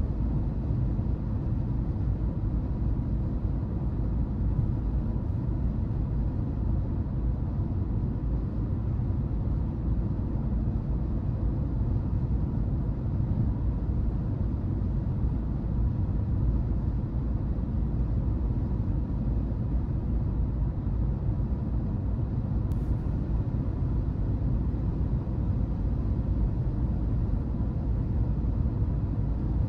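Car driving at a steady speed: a continuous low rumble of road and engine noise that stays even throughout, with one faint brief tick about 23 seconds in.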